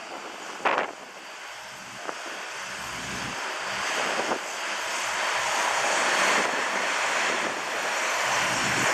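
Embraer E-175's twin turbofan jet engines (GE CF34s), a steady jet rush that grows gradually louder, with a short gust of wind on the microphone under a second in.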